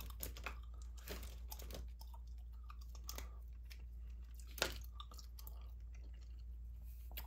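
Gum chewing: irregular wet smacks and clicks, with one sharper click about four and a half seconds in.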